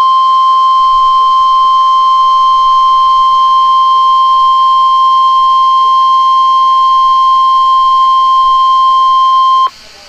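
NOAA Weather Radio 1050 Hz warning alarm tone: one steady, loud beep that cuts off sharply near the end. It signals an Emergency Alert System activation, here for a severe thunderstorm watch.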